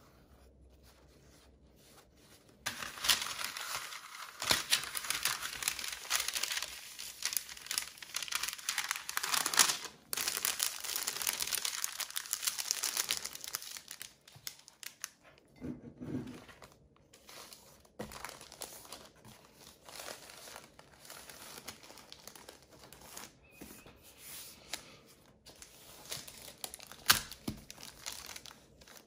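Paper rustling and crinkling as paper towels and a thin sheet of translucent paper are handled and smoothed flat by hand. It is dense from about three seconds in until about fourteen seconds, then turns to quieter, sparser rustles and light taps, with one sharper knock near the end.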